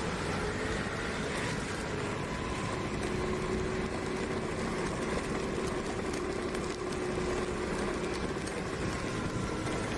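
Motorbike engine running steadily while riding at about 35 km/h on a wet road, with a constant hiss of tyres and wind.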